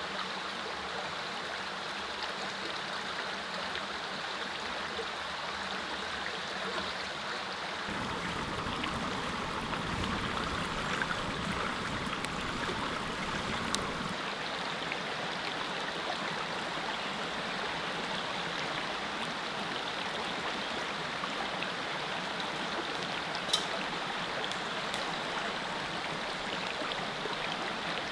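Small mountain creek running steadily. A low rumble joins it for several seconds about a third of the way in, and there are two sharp clicks, the louder one near the end.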